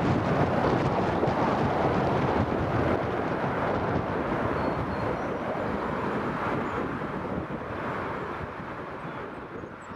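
Jet engines of a departing Boeing 777-300 at takeoff power as it climbs away, a steady, loud rushing noise that slowly fades.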